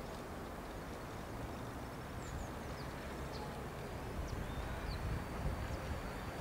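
Low, steady rumble of an approaching express train hauled by an EP08 electric locomotive, growing a little louder about four seconds in, with a few short bird chirps above it.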